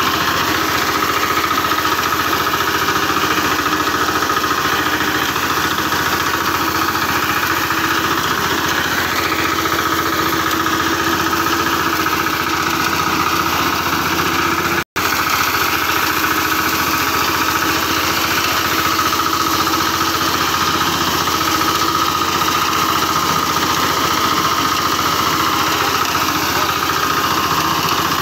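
Walk-behind crop reaper's small petrol engine running steadily under load while its cutter bar mows standing wheat. The sound cuts out for an instant about halfway through.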